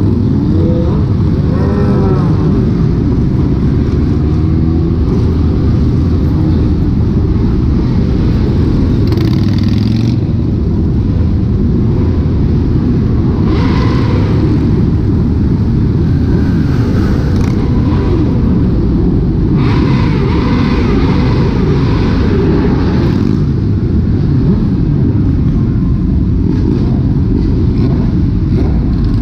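Many motorcycle engines running and revving together in a large pack, loud and steady, with overlapping rises and falls in pitch as individual bikes throttle up and back off.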